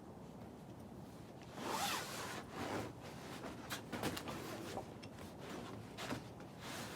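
Irregular scraping and rustling with a few sharp clicks, typical of a climber's shoes and clothing brushing against rock while topping out a boulder.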